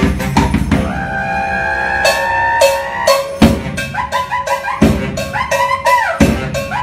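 Baritone saxophone and bass drum playing live: a held sax note about a second in, then short, punchy sax phrases over heavy bass-drum hits.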